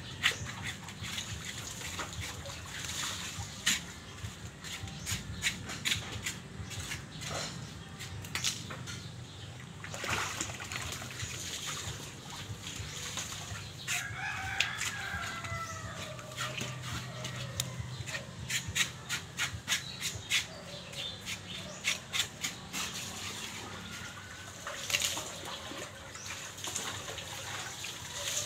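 Hands rubbing and pulling scalded hair off a piglet carcass in a basin of hot water, making a run of short scraping and splashing sounds. A rooster crows once, about halfway through.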